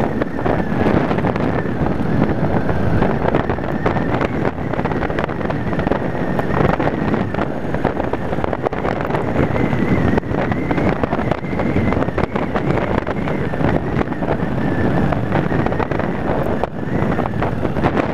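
Yamaha Wildstar cruiser's V-twin engine running steadily at road speed, heard through heavy wind buffeting on the handlebar-mounted camera's microphone.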